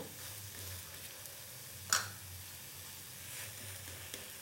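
Patisapta crepe frying in ghee in a pan, a faint steady sizzle, with one sharp click about two seconds in.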